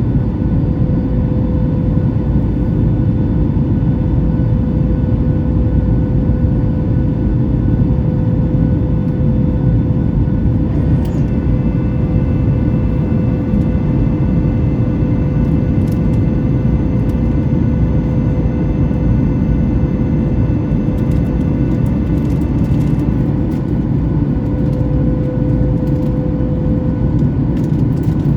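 Cabin noise of a Boeing 737 MAX 8 under engine power: the CFM LEAP-1B turbofans and airflow make a loud, steady rumble with a constant hum. Fainter high whining tones join about a third of the way in and fade out near the end.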